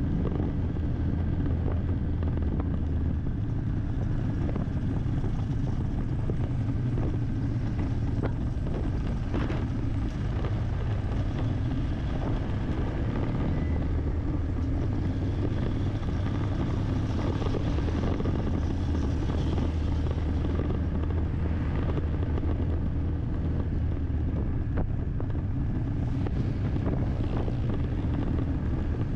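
Steady drone of a vehicle's engine and road noise, heard from inside the moving vehicle at an even cruising pace.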